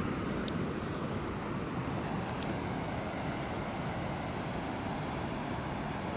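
Steady low rumble of ocean surf mixed with wind on the microphone, with a few faint clicks.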